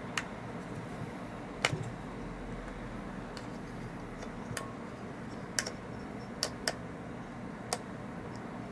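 Porlex Mini hand coffee grinder's grind-adjustment nut clicking through its detents as it is turned, one sharp click at a time, about a second apart. The clicks are being counted out from fully tight to set the burr gap for a medium, drip grind.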